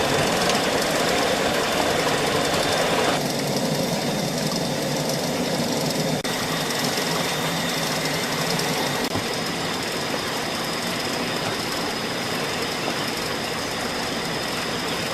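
A motor-driven machine running steadily with a rapid mechanical clatter. The sound changes abruptly about three seconds in and again about six seconds in.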